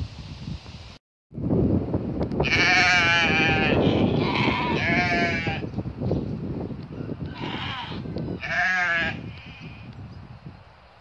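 Soay sheep bleating: about five quavering bleats, in two clusters with a pause between, over a steady low background noise.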